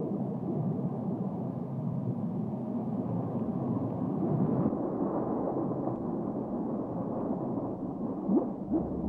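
Offshore tin-mining dredge's steel drill or cutter working through seabed sediment: a steady, muffled, low rumbling churn. A deeper hum comes in near the end.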